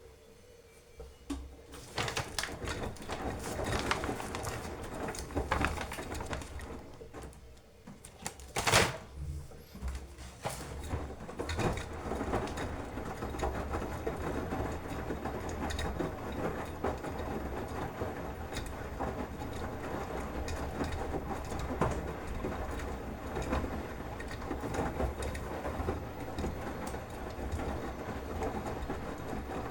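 Beko washing machine running, starting up about two seconds in and then going on steadily with a low rumble and uneven clicking and rattling from the turning drum. A single sharp knock stands out about nine seconds in.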